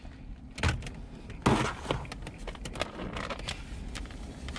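Plastic takeout container crackling and clicking as it is handled. There is a sharp crackle about 0.7 s in, a louder one about 1.5 s in, and smaller ticks throughout.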